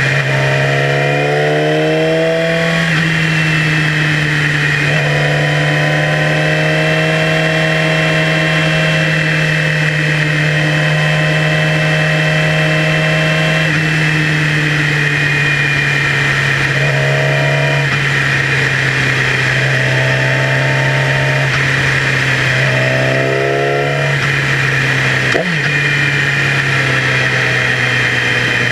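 Yamaha YZF-R6 sport bike's inline-four engine running at road speed, its pitch climbing several times under throttle and dropping back at each gear change, with steadier stretches in between, over rushing wind noise.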